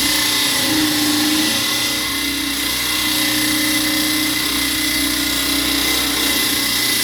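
Power tool cutting into concrete, running steadily with a constant whine and a loud grinding hiss.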